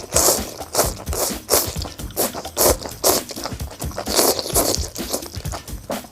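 Close-up chewing of crunchy blanched beef omasum tripe, a crisp crunch with each bite coming irregularly every half second or so, over background music.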